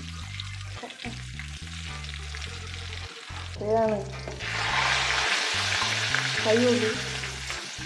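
Chicken pieces in a crushed-chips coating deep-frying in hot oil in a kadai, a steady sizzle that grows louder about four and a half seconds in.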